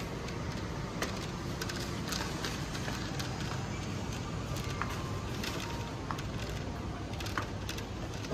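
Supermarket background noise: a steady hum and hubbub with small clicks and knocks scattered through it.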